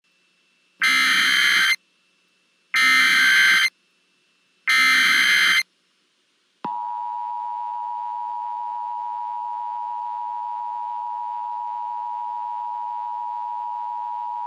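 Emergency Alert System tones: three harsh digital header bursts, each about a second long and two seconds apart, then the steady two-tone attention signal, which starts about six and a half seconds in and holds unbroken. Together they announce an emergency alert message that is about to be read.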